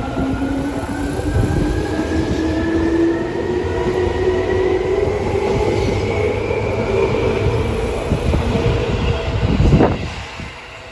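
Seibu Railway electric train accelerating: its motor whine rises steadily in pitch over a continuous rumble of wheels on rail. A sudden thump comes near the end, after which the sound drops away.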